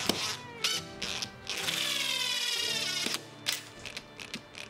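Power drill driving wood screws into plywood: two short bursts, then a longer run of about a second and a half whose pitch sinks slightly as the screw pulls in, followed by a few light clicks. Background music runs underneath.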